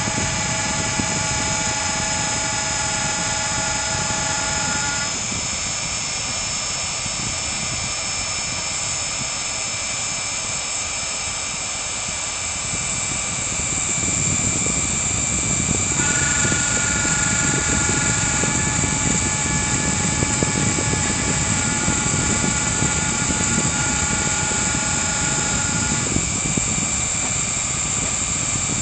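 CNC router engraving wood: the spindle motor runs with a steady high hiss while the stepper motors whine in steady tones that jump to new pitches several times as the axes change moves. A low rumble from the cutting grows stronger about halfway through.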